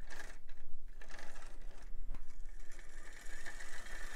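Tyco Clementine HO-scale model steam locomotive running on track, driven by the motor in its power tender: a fluttering mechanical clatter of motor, gears and wheels, with a steady whine coming in near the end. The running sounds like it needs a traction tire.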